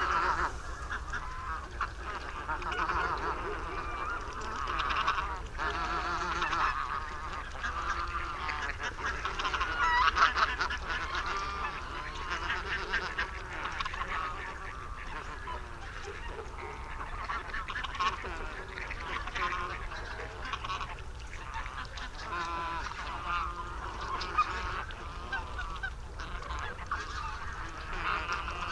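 A large flock of barnacle geese calling continuously, many short honks overlapping into a constant chatter, loudest about ten seconds in.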